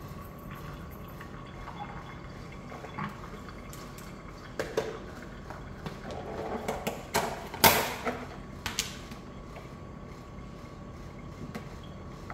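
Handling noises at a stainless steel kitchen sink: a run of knocks, clicks and plastic rustling over a faint steady hum, with the loudest knock about eight seconds in.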